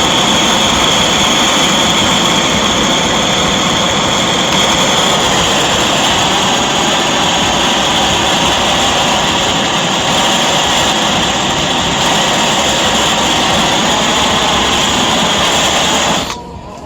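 Cheap portable camping gas burner, its nozzle just cleaned, running with a loud steady hiss of escaping gas. The hiss shifts slightly about five seconds in and stops abruptly near the end.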